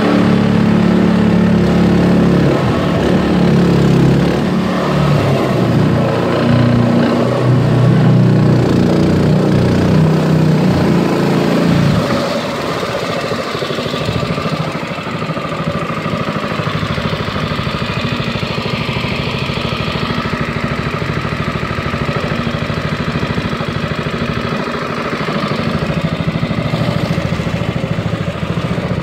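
Small outboard motor pushing an aluminum Grumman sport canoe, running steadily with water washing along the hull. About twelve seconds in, it gets quieter and runs on at the lower level.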